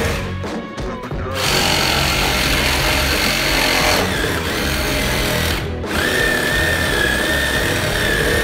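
Cordless reciprocating saw cutting through window trim and wall framing over background music. It starts about a second and a half in, stops briefly past the middle, then runs again with a steady high whine.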